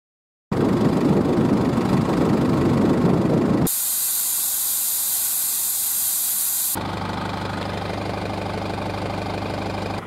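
A loud, rough rumbling noise for the first few seconds, then a steady high hiss of air let out of a GAZ Sobol's tyre through a dial deflator gauge on the valve, as the tyre is aired down to about 0.5 atm for snow. Near the end the hiss stops and the van's engine is heard idling steadily.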